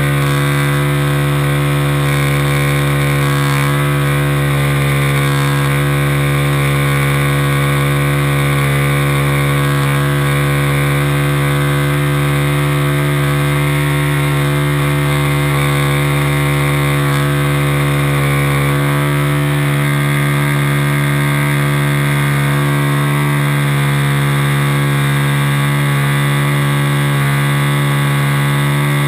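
RC Cub model airplane's motor and propeller running at a steady, unchanging throttle in flight, heard loud and close from inside the model's cabin.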